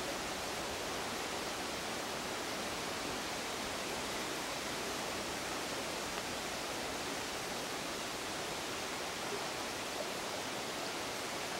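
Shallow creek water flowing steadily over stones, an even rush of moving water.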